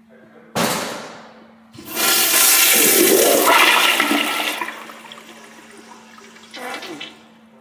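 Commercial toilet with a Zurn Aquaflush flushometer valve flushing: a sudden rush of water about half a second in, then a louder rushing flush for about three seconds that fades away, with a short surge again near the end.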